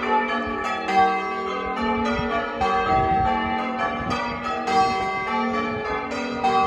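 Ring of six church bells, the tenor 9 cwt 2 qr in G, being rung one after another in a steady rhythm, each bell's tone ringing on over the next strike.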